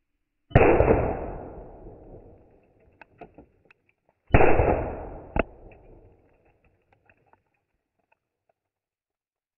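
Two small blasting charges going off in a model rock face about four seconds apart, each a sudden bang that dies away over a second or two. A sharp crack follows a second after the second bang, with scattered small clicks after each blast.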